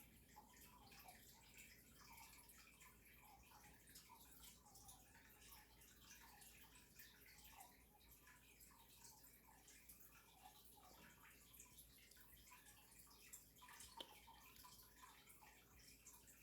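Near silence, with faint dripping water throughout and one faint click near the end.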